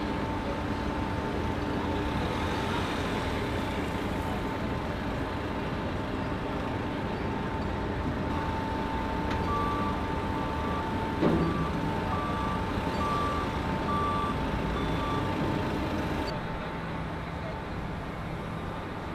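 Doosan forklift running steadily while working. Midway its reversing alarm sounds a run of short, evenly spaced beeps for several seconds, and partway through there is a single loud clunk.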